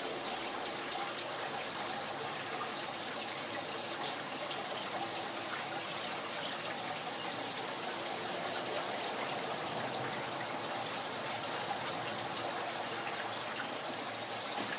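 Water from the pond's filter outlet pouring in several streams into the surface of a goldfish pond, a steady splashing trickle.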